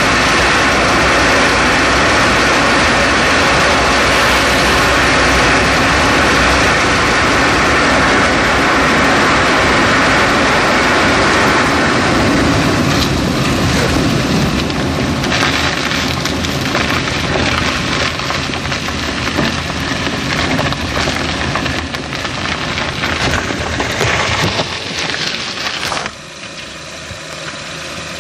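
Tyre and road noise picked up at the right front strut of a 2011 Chevrolet Cruze while driving, easing off about halfway through with many scattered short clicks and knocks from the suspension corner. About 26 seconds in the noise drops abruptly to a lower, steadier engine-idle sound.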